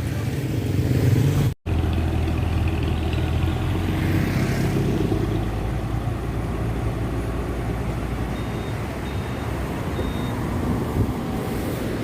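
Intercity bus diesel engine running through a modified 'ngorok' (snoring) exhaust, a deep steady drone as the bus moves off. The sound cuts out for an instant about a second and a half in.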